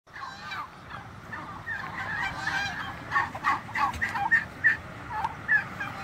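Turkeys calling: a quick run of short, overlapping calls that grows busier after the first second or so.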